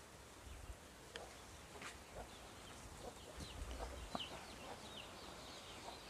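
Free-range chickens faintly peeping and clucking, with short, high, falling chirps repeating through the second half. There are a few soft low bumps and clicks.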